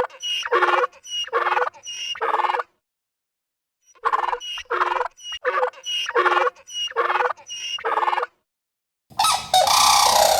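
An animal calling in short, evenly spaced repeated calls, four and then six after a brief pause. A different, louder animal call begins near the end.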